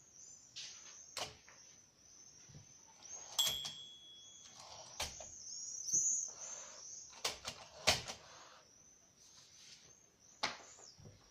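Olympia SM9 manual typewriter being handled: irregular clicks, knocks and short sliding rasps from its mechanism, with one short ringing tone about three and a half seconds in.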